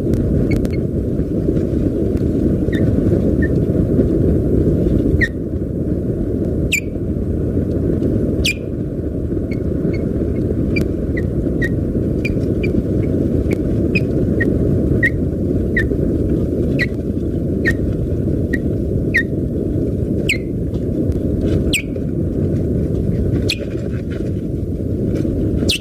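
Osprey on its nest giving alarm calls at an intruder: a string of short, high chirps, sparse at first and then about two a second, with sharper, louder calls among them. A steady low rumble runs underneath.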